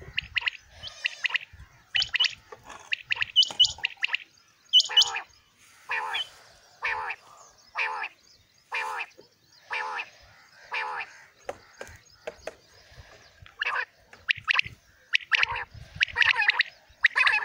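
Caged quail calling, a run of short calls repeated about once a second, some with a higher, sharper note on top.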